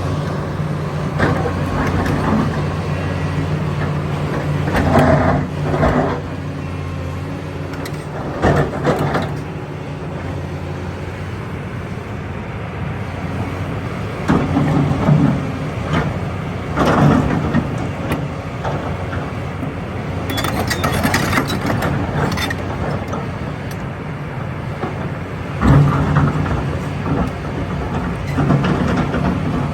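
Kobelco 380 excavator's diesel engine running steadily, with its sound swelling under load every few seconds as it works, along with scraping and clanking bursts.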